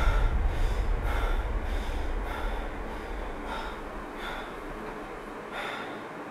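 A man breathing hard and fast in short gasping breaths after waking with a start, the breaths coming about every half second and then slowing. Under them a deep low rumble fades away.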